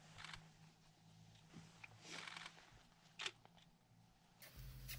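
Near silence: a faint low hum with a few soft rustles and handling sounds, and a brief sharper click about three seconds in.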